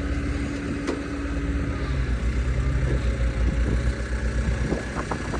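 Engine of the vehicle pulling the greenhouse by chain, running steadily under load, a little stronger about two seconds in.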